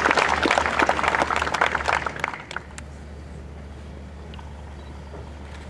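Congregation applauding, the clapping thinning out and dying away about two and a half seconds in, leaving a low steady hum.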